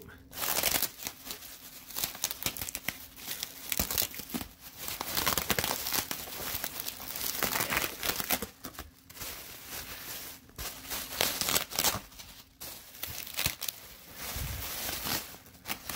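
Bubble-wrap packing being pulled off and handled, crinkling and rustling in irregular spells with short pauses between them.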